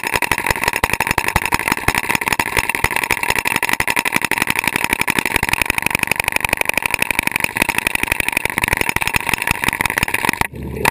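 Stanley hydraulic hammer breaker pounding rock underwater, a loud, rapid, steady hammering that pauses briefly near the end.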